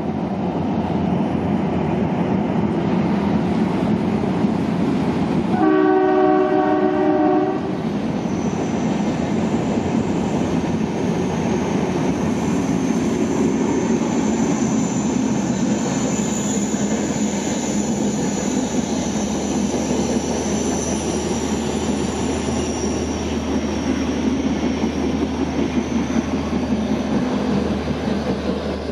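Train running on the rails with a steady dense rumble. Its horn sounds a chord of several tones for about two seconds, around six seconds in. A thin high whine joins from about eight seconds in.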